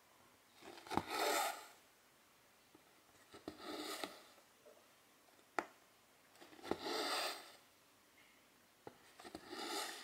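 Cross-stitch needle clicking as it pierces the fabric, each click followed by a swishing rasp of silk thread drawn through: four stitches, about one every three seconds.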